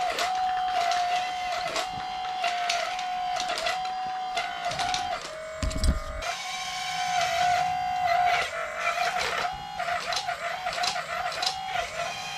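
Small electric motor and gearbox of a radio-controlled construction model whining steadily, its pitch dipping briefly again and again as it works, with rattling clicks. About six seconds in there is a low thump and the whine drops in pitch for a moment, as under load.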